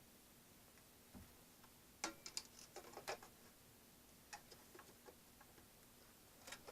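Light clicks and small knocks of a radio being handled and test-fitted into its newly machined opening, a quick cluster about two seconds in and a few scattered ones after.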